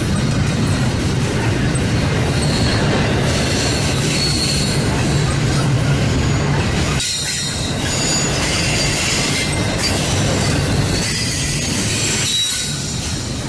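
Double-stack intermodal train's well cars rolling past: a steady rumble and rattle of steel wheels on rail with faint high wheel squeals. The sound dips briefly about halfway through and again near the end.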